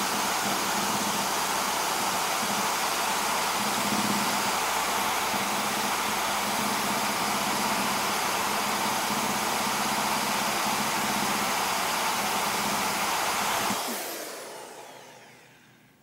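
Drill spinning a rubber decal eraser wheel against the painted steel side of a school bus, stripping reflective tape: a steady whirring that fades away near the end.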